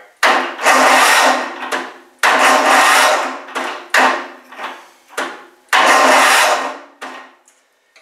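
Lawn tractor's electric starter, run off a jump starter, engaging four times in a row without turning the Tecumseh engine over. Each try is a burst of a second or two that starts abruptly and fades. This is the sign of too much compression, which the owner puts down to a compression release that isn't working.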